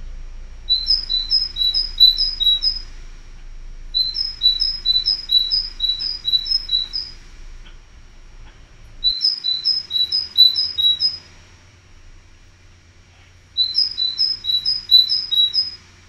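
Great tit singing: four bouts of a quick, repeated two-note phrase, high then low, with short pauses between bouts.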